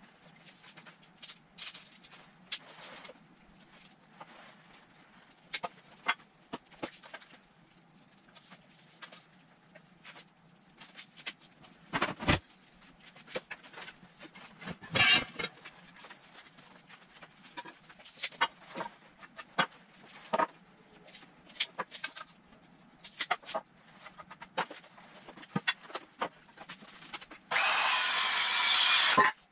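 Scattered knocks, taps and clicks of lumber and hand tools being handled at a workbench. Near the end a loud power tool runs steadily for about two seconds.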